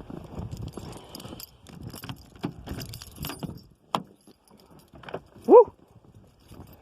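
Irregular crunching and rustling, fading out over the first few seconds, then a man's loud, rising shout of "Woo!" near the end.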